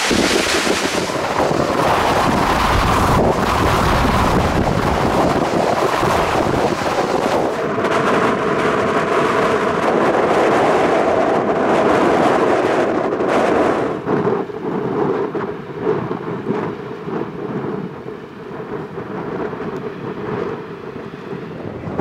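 Strong wind rushing and buffeting the microphone, loud and dense, easing about fourteen seconds in to a quieter, gusty rush.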